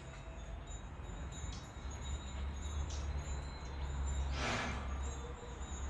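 Quiet outdoor ambience: a low hum, faint short high tinkles, and a brief hiss about four and a half seconds in.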